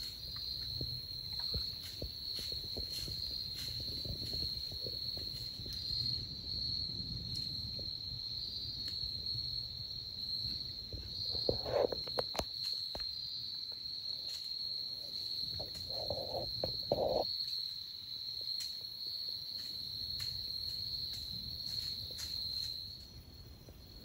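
Steady, high-pitched insect chorus droning without a break in autumn woods, with faint ticks and a low rumble underneath. A few brief louder sounds come about halfway through.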